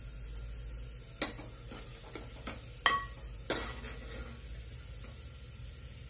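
Sliced onions sizzling in hot mustard oil in an aluminium pressure cooker while a steel ladle stirs them, scraping and knocking against the pot: about six sharp clinks between one and four seconds in, the loudest ringing briefly. The onions are being fried only to a light pink.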